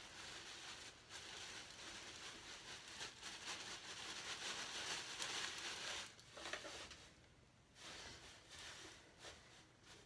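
Faint rustling and crinkling of shredded newspaper and a plastic bag as the paper is handled and packed into wooden nest boxes as bedding. It goes quieter about seven seconds in.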